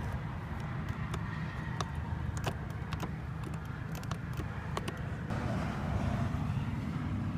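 Power seat motors humming steadily while the passenger seat's adjustment switches are worked, with light clicks from the switches and handling. The hum changes about five seconds in, as the seat stops or changes direction.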